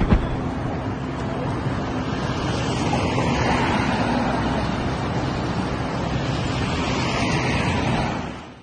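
Steady rushing wind noise on a phone's microphone, fading out near the end.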